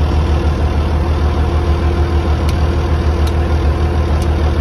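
International Harvester 1466 tractor's six-cylinder turbo diesel running steadily, heard from inside the cab: a deep, even throb with a steady hum above it.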